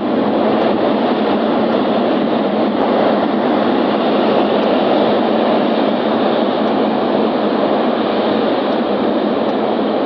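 Floodwater of the Indus river rushing in a loud, steady roar.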